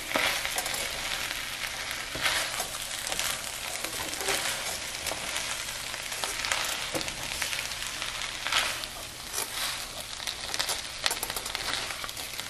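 Fried rice with broccoli sizzling in a frying pan as it is stirred and turned with a silicone spatula: a steady sizzle broken by irregular scraping strokes of the spatula through the rice.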